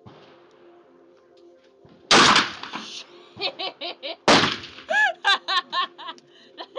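Two shots from an ATIS semi-automatic 12-gauge shotgun firing rifled slugs, about two seconds apart, each with a short echo. A woman laughs in short bursts after each shot.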